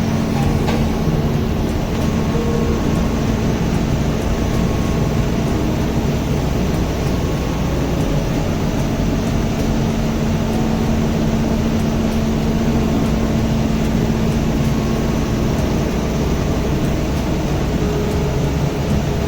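Steady hum and drone of running machinery, with one constant low tone over an even rumble and no change in speed or level.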